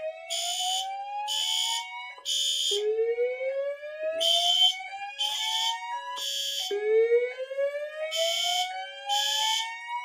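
Fire alarm drill: a slow whoop evacuation tone from a Notifier DVC voice-evacuation panel rises over about three and a half seconds and repeats three times. Over it, fire alarm horns sound the code-3 temporal pattern, three short blasts and a pause, repeating.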